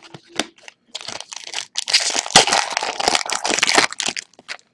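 Foil wrapper of an Upper Deck Series 2 hockey card pack crinkling and tearing as it is ripped open by hand. A few light clicks of cards being handled come first, then the crinkling builds and runs for about three seconds.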